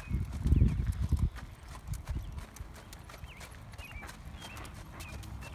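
Horse's hooves trotting on sand arena footing, with a louder low rumble in the first second or so.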